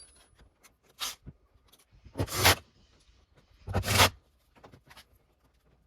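Short scraping and rubbing sounds of work on a car door's plastic trim panel. There are three bursts, a brief one about a second in and two louder ones around two and four seconds, with faint clicks between them.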